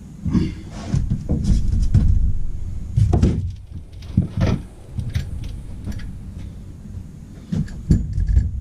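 Irregular clunks, knocks and clicks of motorcycle fork parts being handled and set down on a workbench, with heavier knocks about three seconds in, about four and a half seconds in, and twice near the end.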